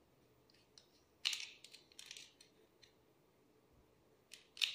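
Small screwdriver clicking and scraping against the terminal screw of a plastic three-pin mains plug as a wire is fastened: a few short clicks, the clearest about a second in and again near the end.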